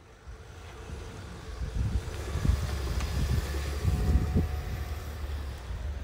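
Wind buffeting a phone microphone outdoors in falling snow: a low, uneven rumble with gusty swells that builds over the first couple of seconds and then holds.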